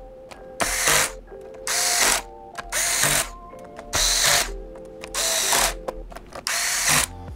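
Cordless electric screwdriver tightening the laptop's bottom-cover screws: six short whirring bursts of about half a second each, roughly one a second, as it drives one screw after another.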